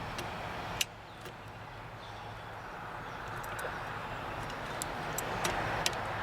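A few sharp, isolated clicks of small metal typewriter parts being handled and fitted together, one about a second in and a couple more near the end, over a steady faint hiss.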